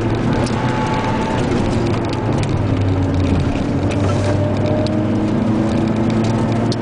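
A car engine running under light throttle, heard from inside the cabin while driving along a winding road, with tyre and road noise underneath. The engine note rises a little around the middle.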